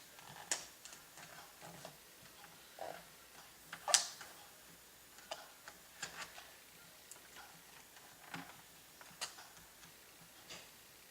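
Scattered small plastic clicks and taps from handling a laptop keyboard and its ribbon-cable connector, with one sharper click about four seconds in.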